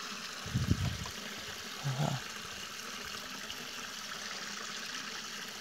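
Steady rush of river water flowing among rocks, with a low dull bump about half a second in and a short murmured voice sound about two seconds in.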